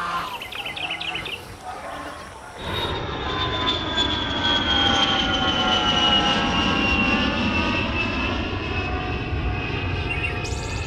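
An airplane flying over, its engine whine slowly falling in pitch. It comes in suddenly about two and a half seconds in, after a quieter stretch with a few chirps.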